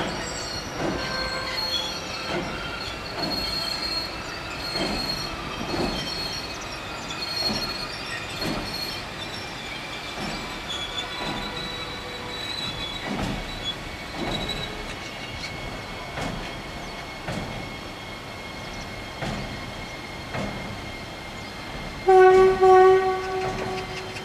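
SS4 electric locomotive rolling slowly by: its wheels click over rail joints in an even rhythm, a little under a second apart, with a thin high squeal from the wheels. Near the end a train horn blows twice, the loudest sound.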